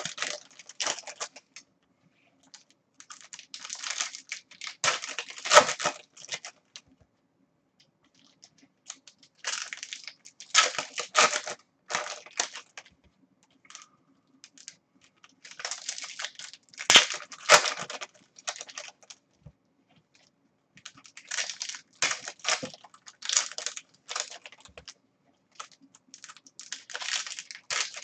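Foil trading-card pack wrappers being torn open and crinkled by hand, with the cards handled and set down, in bursts of a few seconds separated by short pauses.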